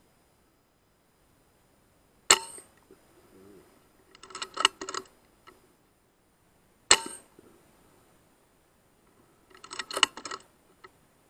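Sub-12 ft-lb .177 FX Wildcat Mk III air rifle fired twice, about four and a half seconds apart, each a sharp crack. Each shot is followed about two seconds later by a quick run of metallic clicks, typical of the side lever being worked to cock the rifle and load the next pellet.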